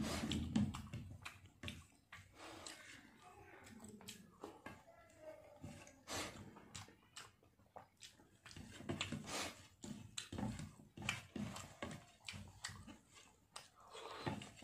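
Person eating rice and fried fish by hand: chewing and wet mouth smacks, with soft irregular clicks of fingers mixing food on the plate.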